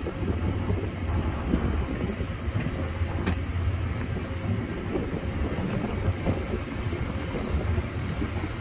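A train rolling past: a steady rumble of wheels on rail with scattered clicks, one sharper click about three seconds in.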